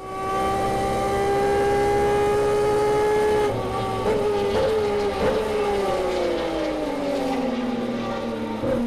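Turismo Carretera race car engine at high revs, holding a steady pitch for about three and a half seconds, then dropping gradually in pitch over the last few seconds as the revs come down.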